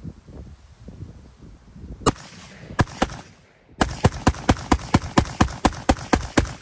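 Zastava ZPAP M85 5.56 mm pistol firing: one shot, then two close together, then a steady string of rapid semi-automatic shots at about four a second.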